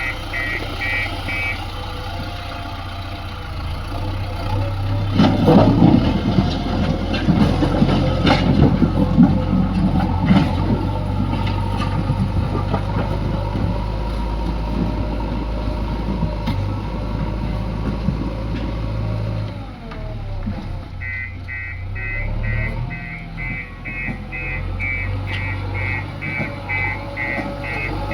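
JCB backhoe loader's diesel engine running steadily while it works, with clattering and scraping from about five to twelve seconds in. Near the end the machine's reversing alarm beeps repeatedly, about two beeps a second.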